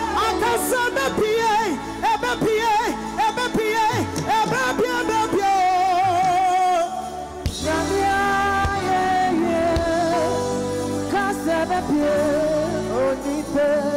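Live gospel music: a female lead singer sings quick runs and long wavering held notes over a band's steady chords and bass.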